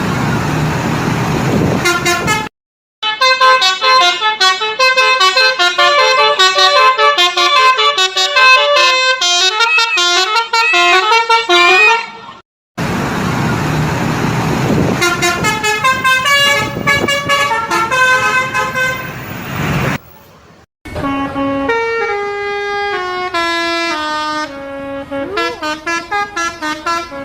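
Basuri 'telolet' multi-tone musical air horns on tour buses, playing fast stepping tunes of clear steady notes. Several separate horn clips are cut together, with abrupt breaks between them, and a noisy rush sits beneath the horns in places.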